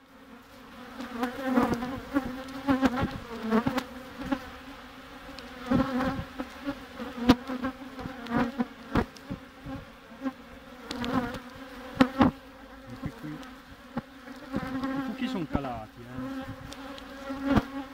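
Honeybee colony buzzing over an open hive: a steady hum, with individual bees whining past close by, rising and falling in pitch. Scattered sharp clicks and knocks sound over it.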